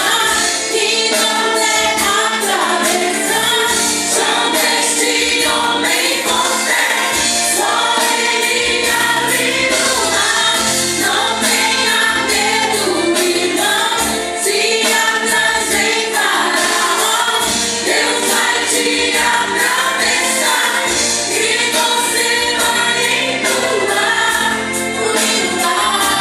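Congregational worship song: group singing with live band accompaniment and a steady beat.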